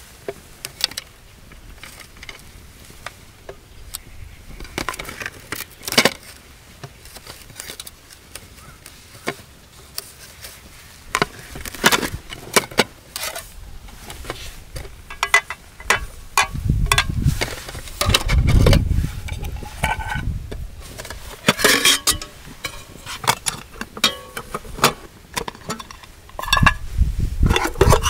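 Nested aluminium camping cookware being handled and unpacked: a drawstring mesh bag is opened, then pots, lids and a plastic bowl are lifted apart and set down, giving many light clinks, knocks and scrapes. The handling gets busier and louder about halfway through.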